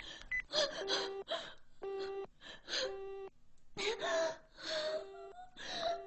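A woman gasping and whimpering in panic, with short sharp breaths and brief pitched cries. Behind her a phone's low beep tone repeats about once a second, like a busy signal on the line.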